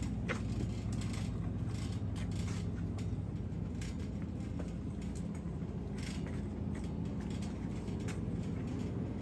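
Wire shopping cart rolling across a store floor: a steady low rumble with scattered metal clicks and rattles.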